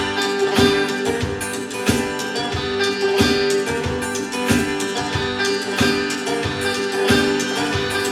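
A live band playing an instrumental passage of a bluegrass-style rock cover: plucked strings over a steady beat, with a held note sounding underneath.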